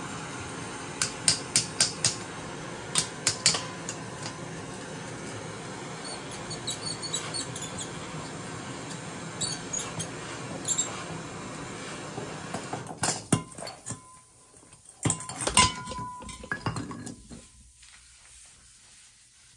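Metal hand tools clinking and tapping in quick clusters of sharp clicks, with a short squeak near the end, over a steady background noise that fades out after about 13 seconds.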